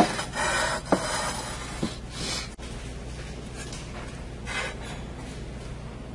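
Light handling noise from a ceramic platter being worked on a table: a few brief soft rubs and light knocks, separated by a steady low room hum.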